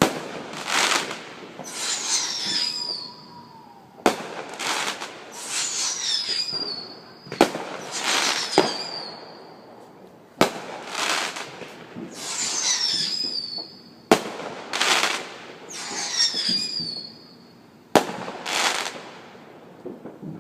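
Fireworks going off: a run of sharp bangs, roughly one every four seconds. Each bang is followed by a loud hissing crackle, often with a high whistle falling in pitch.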